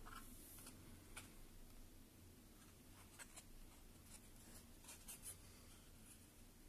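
Near silence: low steady room hum with a few faint, short clicks and scratches.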